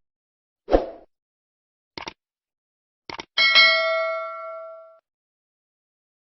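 An edited-in sound effect: a dull thump, two short clicks, then a bright metallic ding that rings for about a second and a half before cutting off abruptly.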